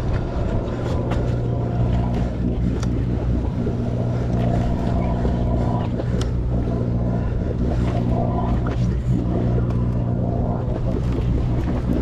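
Sportfishing boat's engine running at a steady low drone, with a few light knocks over it.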